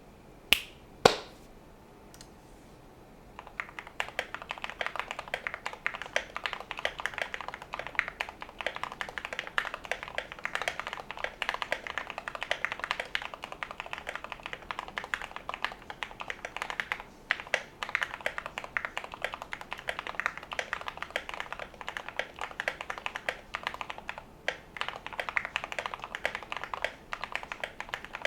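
Typing on a modded Glorious GMMK Pro mechanical keyboard with lubed Gateron Ink Black v2 linear switches, tape mod, MT3 keycaps and lubed Durock v2 stabilizers: fast, steady keystrokes with brief pauses, starting about three seconds in. Two sharp, louder clacks come in the first second or so.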